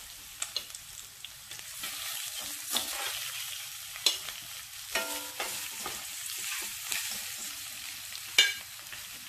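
Boiled octopus tentacles sizzling in hot olive oil with garlic in a blue steel pan, a steady hiss. About five sharp metallic clinks ring out over it as tongs lift more tentacles into the pan.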